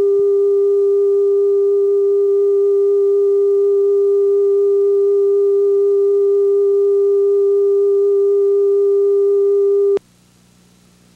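Steady line-up test tone recorded with the colour bars at the head of a CVC video cassette: one unwavering pitch with faint overtones, cutting off abruptly about ten seconds in. Faint tape hiss and low hum remain after it stops.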